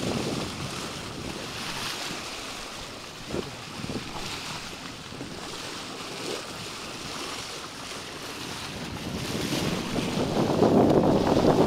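Sea water rushing and splashing along a sailing yacht's bow as it moves, with wind buffeting the microphone. There are a couple of brief sharp splashes about a third of the way in, and the water noise swells louder near the end.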